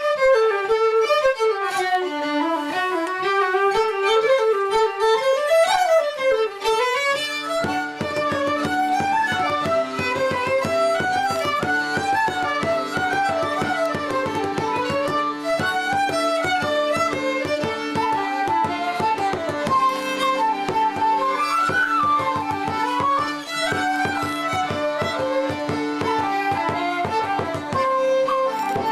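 Fiddle playing a folk tune alone, joined about seven seconds in by accordion and other instruments, the group then playing the tune together.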